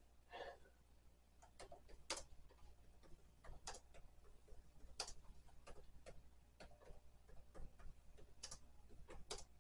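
Faint, irregular keystrokes on a laptop keyboard, about a dozen scattered clicks with uneven gaps.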